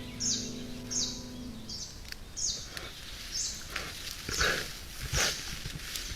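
A bird calling over and over, a short downward-sliding chirp about once a second. Background music fades out about two seconds in, and a few soft rustles come near the end.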